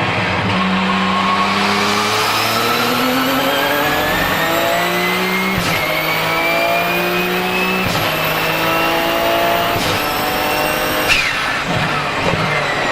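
Porsche 997 GT2 RSR's twin-turbocharged 3.9-litre flat-six accelerating hard, its pitch climbing in runs broken by three quick upshifts of the sequential gearbox, with turbo whistle rising over the engine. About eleven seconds in the throttle closes: the whistle falls away with a sharp blow-off valve release.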